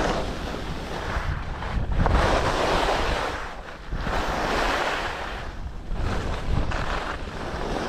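Skis scraping and hissing over packed snow, rising and falling in swells with each turn, over a steady rumble of wind buffeting the microphone.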